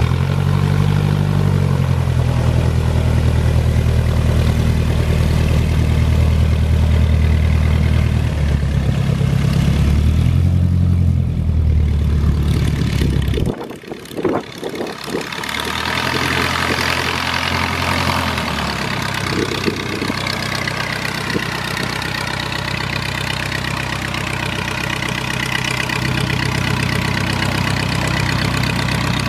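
A de Havilland Tiger Moth's four-cylinder inverted piston engine running with the propeller turning, its pitch rising and falling with the throttle. About 14 seconds in it cuts out briefly, then it is heard fainter and thinner while the biplane taxis across grass.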